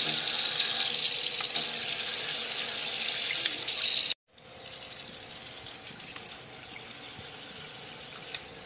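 Water running from a flexible gooseneck faucet's spray head: a single stream for about four seconds. It breaks off for a moment, then comes back as a higher, hissing shower spray once the head is switched to spray mode.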